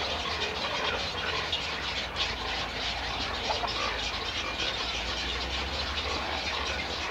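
Steady mixed din of many birds calling from a waterbird nesting colony (rookery), with a low rumble underneath.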